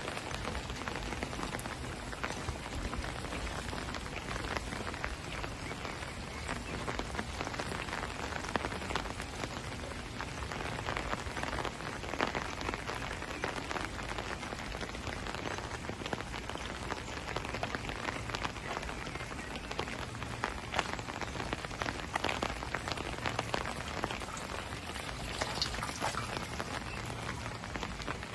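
Steady rain falling on wet pavement, puddles and foliage: an even hiss thick with the patter of individual drops.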